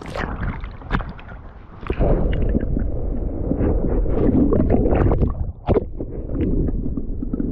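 Sea water splashing around an action camera as it is dipped at the surface, then, about two seconds in, the muffled underwater rumble and gurgle of moving water heard by the submerged camera, with scattered clicks and knocks.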